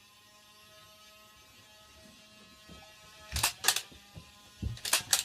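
Small electric motor whining steadily, typical of a motorised Nerf blaster's flywheels spun up. In the second half come four sharp snaps in two close pairs, typical of Nerf darts being fired.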